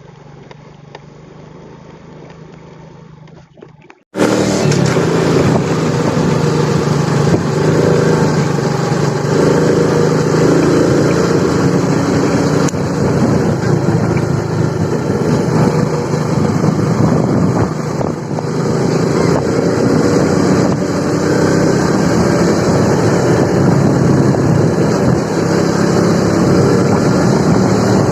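Motorcycle engine running while riding, with wind rushing over the microphone. The sound is quieter and duller for the first four seconds, then jumps suddenly to much louder.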